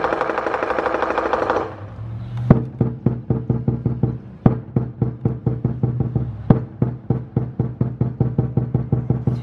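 Lion dance percussion of drum, cymbals and gong. A dense, fast roll with ringing cymbals runs for the first second and a half or so. Then come rapid drum strokes, several a second, with a heavy accent about every two seconds over a steady ringing.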